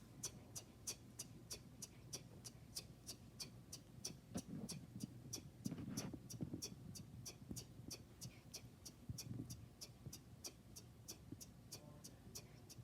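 A person imitating a 1999 Toyota Corolla's turn-signal blinker with mouth clicks: a steady ticking about three times a second. Faint low vocal sounds come in around the middle.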